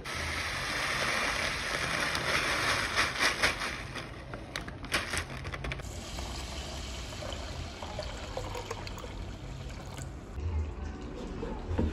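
Water running for about four seconds, followed by a few light clicks and knocks, then a quieter stretch.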